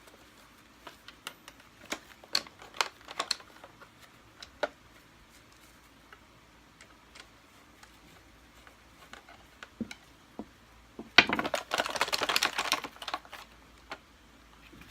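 Scattered light clicks and taps of hand tools on the plastic and metal parts of a Kirby Sentria II vacuum cleaner being taken apart. About eleven seconds in comes a louder rattling clatter of parts lasting a couple of seconds.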